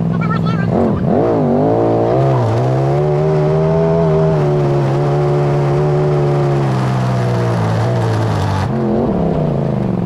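Side-by-side UTV engine pulling away from a stop: its pitch dips and climbs in the first couple of seconds, then holds steady at a cruise before falling as it slows near the end.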